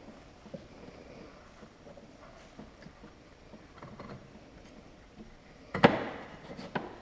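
A CVT drive belt being worked by hand off the clutch sheaves, the clutch held open by the belt-removal tool so the belt comes off slack: faint scraping and handling, then one sharp clunk near the end followed by a short rattle.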